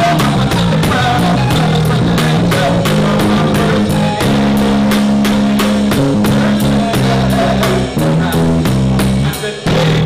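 Live R&B band music: a drum kit keeps a steady beat with evenly spaced cymbal and drum strokes over sustained low chords, dipping briefly just before the end.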